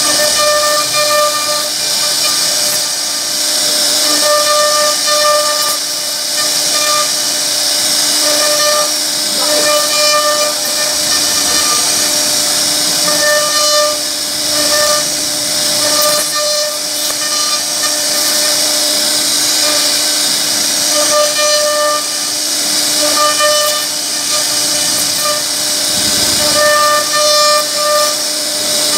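CNC router spindle running at high speed as its bit carves a relief pattern into wood: a steady high hiss and whine, with a pitched tone that keeps coming and going as the cut changes.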